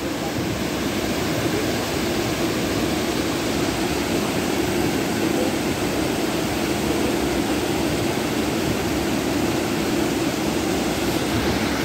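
Steady rush of flowing water from a mountain stream and waterfall, an even noise that does not change.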